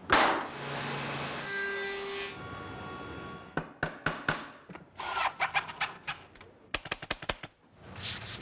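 Woodworking sounds in quick succession: a machine running steadily against a piece of wood, then a run of sharp taps from a hammer driving a wooden dowel into a board, then scraping and quick clicks on wood.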